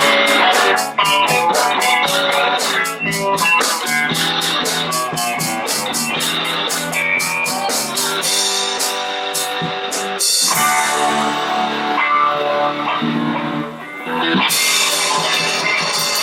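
Live band playing: guitar over a drum kit, with quick, even cymbal strokes through the first half that thin out later, and a short dip in level near the end.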